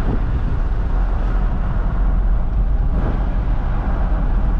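Toyota Hilux pickup driving at highway speed, heard from inside the cab: steady engine and tyre noise, heaviest in the low end, with no change in pace.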